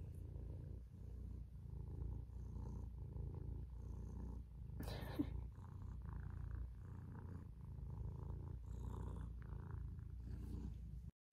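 Domestic cat purring close against the phone's microphone, a steady low rumble that rises and falls with its breathing. A short click comes about five seconds in.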